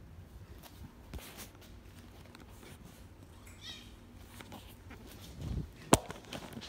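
Kittens play-fighting on a wooden floor: scattered light taps and scuffs, with one short, high kitten meow a little past halfway through. Near the end comes a single sharp knock, the loudest sound.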